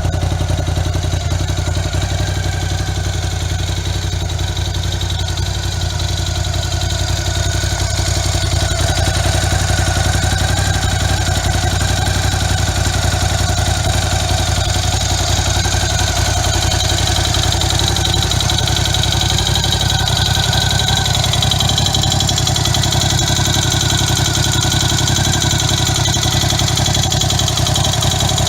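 Ducati Scrambler 1100 Sport's air-cooled L-twin engine idling steadily, a little louder from about eight seconds in.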